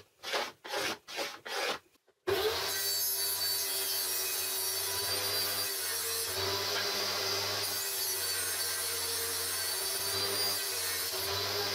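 A few short rubbing and scraping sounds, then about two seconds in a table saw starts running steadily, its blade spinning up through the kerf of an MDF crosscut sled as the sled is pushed across it.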